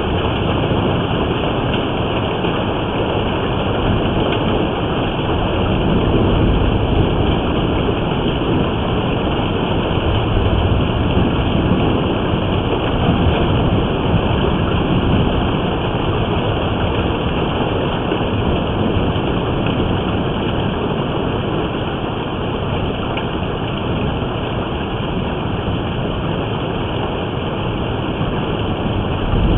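Heavy storm of rain and hail beating down steadily on the house and vehicles, a dense, even rushing noise heard through a surveillance camera's microphone.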